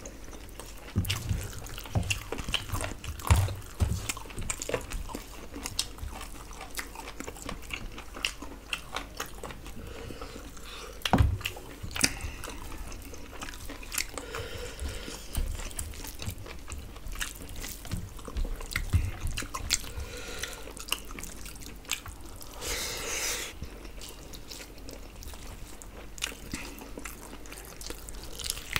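Two people eating rice and curry with their hands: chewing, mouth and lip smacks, and fingers mixing wet rice on the plates, as a stream of small irregular clicks. A sharper knock comes about eleven seconds in, and a short breathy rush about twenty-three seconds in.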